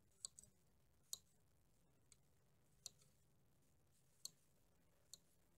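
Metal scalpel and forceps clicking against a glass petri dish while trimming a banana shoot explant: about seven faint, sharp clicks at irregular intervals, roughly one a second.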